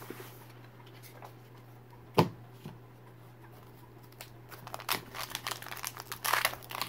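A single knock about two seconds in, then from about four and a half seconds in the foil wrapper of a Pokémon booster pack crinkling as it is picked up and torn open, in a run of short crackles that thickens toward the end.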